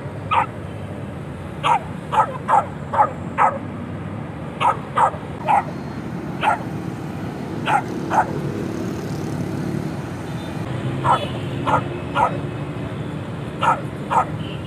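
Dog barking repeatedly in short, sharp barks, some in quick runs of three or four, with pauses between the runs.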